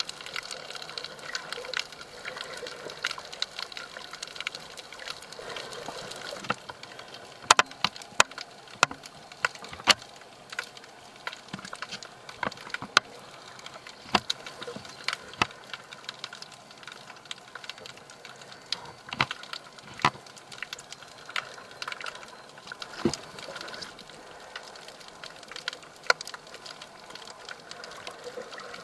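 Underwater ambience heard through a submerged camera: a steady hiss with scattered, irregular sharp clicks and crackles, some much louder than others.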